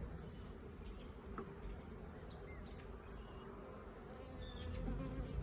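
Honeybees from an opened hive colony buzzing in a steady hum, with a few faint clicks.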